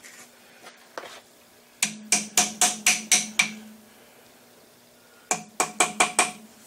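Hammer blows on steel held in a bench vise, each ringing: a run of seven quick strikes, a pause, then five more, about four a second.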